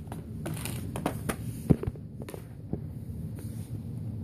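Scattered light clicks and taps of a cardboard and paper box set being handled and opened by hand, over a steady low hum.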